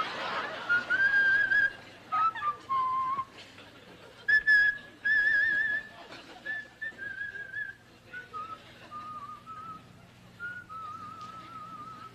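A person whistling a tune: a string of separate held notes, many with a wavering vibrato, moving up and down in pitch.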